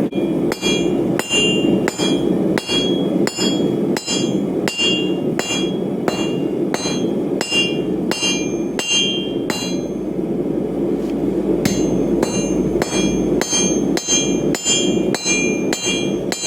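Hand hammer striking hot steel on an iron anvil while forging tongs, about one and a half ringing blows a second. The blows pause for about two seconds midway, then resume. A steady low rushing noise runs underneath.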